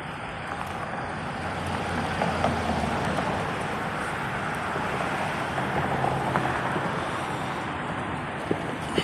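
Steady outdoor background noise like road traffic, growing louder over the first few seconds, with a couple of short sharp pops near the end.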